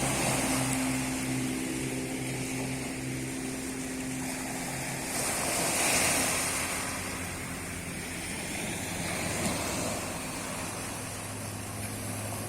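Sea waves washing onto the beach, one surge swelling loudest about six seconds in, with the steady hum of an engine running underneath.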